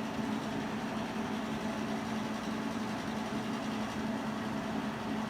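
A steady machine hum with one constant low tone over an even hiss, unchanging throughout.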